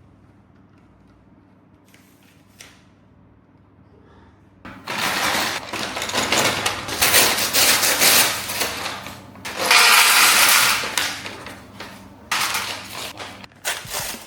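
Bagged Lego Technic pieces and their plastic packaging being handled: a few faint clicks, then about five seconds in loud crinkly rustling and rattling in several long spells.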